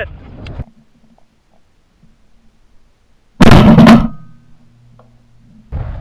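A single shotgun blast about three and a half seconds in, very loud and sudden, dying away within a second with a faint low ring. Wind buffets the microphone before it and again near the end.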